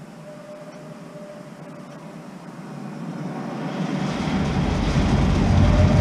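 Rodalies R3 commuter train, two coupled electric units, approaching. A steady tone is heard throughout, and the rumble of the train grows steadily louder over the second half.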